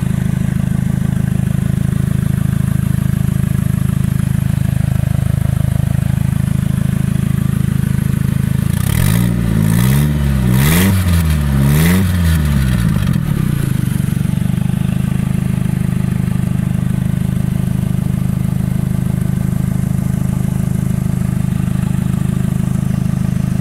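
Toyota MR2's 2.0-litre twin-cam sixteen-valve four with a large CX Racing 50-trim turbo and an open dump, no exhaust, idling steadily. About nine seconds in the revs rise and fall three or four times in quick blips, with a rush of turbo and exhaust hiss, before it settles back to idle.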